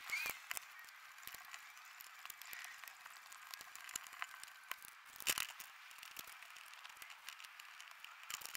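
Faint scattered clicks and taps of metal bolts and nuts being handled and set into holes in a plywood board, with a sharper cluster of clicks about five seconds in.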